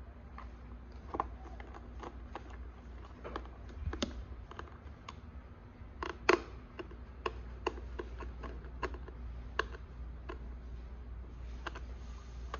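Small screwdriver turning tiny M2×4 screws into a plastic hatch cover on a foam fuselage: irregular light clicks and ticks of the tool and screw, the loudest a little past six seconds in.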